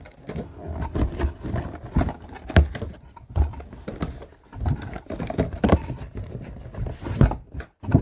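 Small cardboard blind boxes being handled, shaken and set down, giving irregular knocks and thumps with some sharper clicks.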